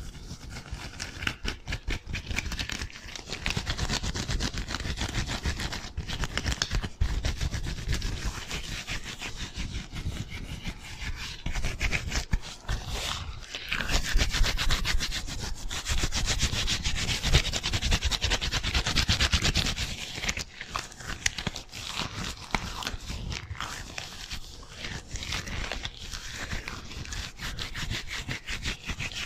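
Gloved hands rubbing against each other fast and hard close to the microphone, a dense run of quick, scratchy rubbing strokes. It is loudest for a stretch in the middle.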